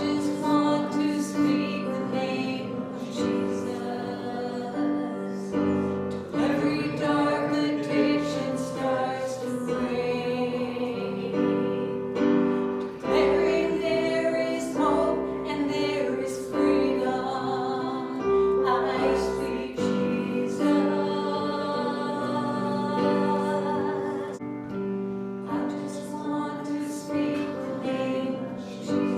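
Worship music: keyboard or piano chords with voices singing along, in sustained, slow phrases.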